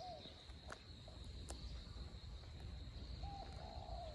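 Faint field ambience: a steady high insect drone, with short bird calls at the start and about three seconds in, over a low rumble.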